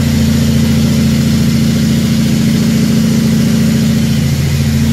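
Heavy truck's diesel engine running steadily, a low, even drone heard from inside the cab.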